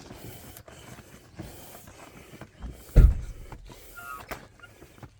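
Air pump inflating an inflatable boat's floor, a rushing hiss in strokes broken by short pauses about once a second. There is a loud low thump about three seconds in.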